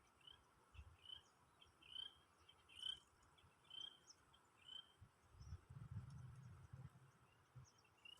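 Faint outdoor quiet with a small bird repeating a short chirp about once a second for the first half, then a low rumble for a second or two.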